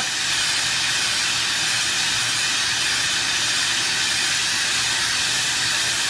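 Air-acetylene turbo torch burning with a steady hiss as its flame heats a steel-to-copper joint toward brazing temperature.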